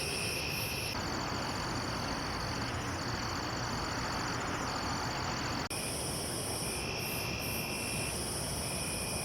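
Night chorus of crickets and other insects, a steady high-pitched trilling over a background hiss. It changes abruptly about a second in and again near six seconds.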